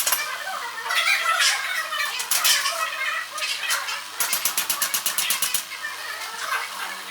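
Excavator demolishing a house: a steady engine hum under repeated cracking and crashing of breaking material, with a rapid rattle of about ten strokes a second for a second and a half in the middle.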